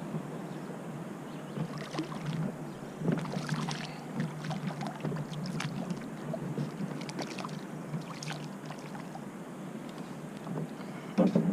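Water lapping and splashing around a fishing kayak, with scattered short splashes and small knocks at irregular moments.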